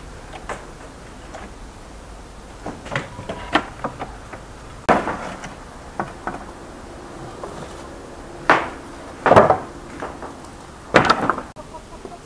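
Irregular sharp knocks and thuds, about a dozen spread unevenly, the loudest about halfway and about three quarters through, over a quiet background.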